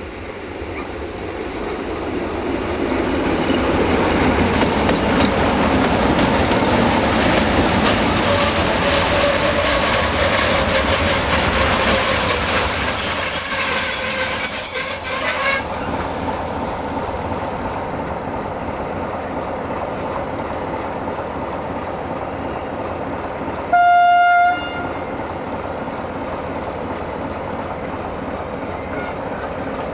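LDE2100 (060-DA) diesel-electric locomotive with its Sulzer 12-cylinder engine approaching and passing with a passenger train, its running sound growing louder over the first few seconds. A steady high wheel squeal on the curve comes in and then cuts off with the locomotive about halfway through. The coaches then roll slowly past with a steady wheel-on-rail rumble, and a single short, loud horn blast sounds about three-quarters of the way through.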